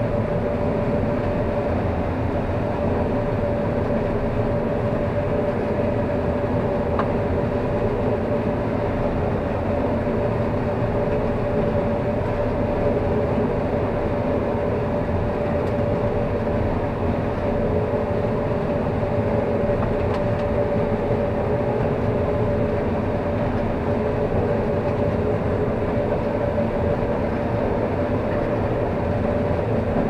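Combine harvester running under load while harvesting corn, heard from inside the cab: a steady machine drone with a constant whine running through it.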